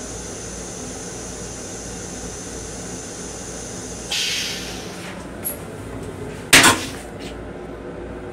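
Steady hum inside a Metro-North M7 railcar restroom. About four seconds in, a hiss of air lasts roughly a second, and about two seconds later comes a single sharp clunk, the loudest sound, followed by a couple of faint clicks.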